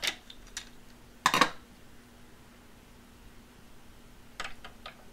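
Plastic parts of a Play-Doh cheese-grater toy being handled: one louder plastic clack about a second in, then a few lighter clicks near the end, over a faint steady hum.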